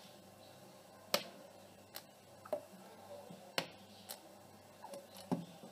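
A handful of light, sharp clicks and taps, spaced unevenly, from handling a plastic chili sauce bottle and a steel spoon as sauce is poured.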